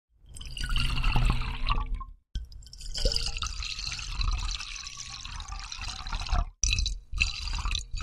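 Water poured into a glass in separate pours: one of about two seconds, a longer one of about four seconds, then two short pours near the end, each stopping cleanly.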